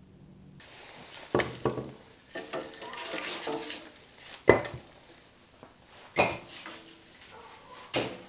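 Split firewood knocking and clattering as it is fed into a wood-fired dome oven, with scraping as pieces slide over the hearth. There are about five sharp knocks, the loudest about halfway through.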